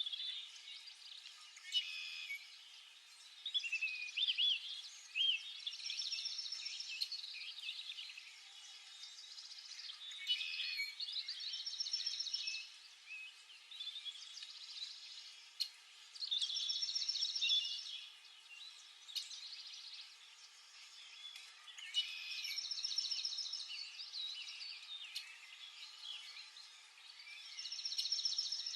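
Songbirds singing and calling: a fast, high trilled phrase comes back about every five to six seconds, with shorter chirps and calls in between.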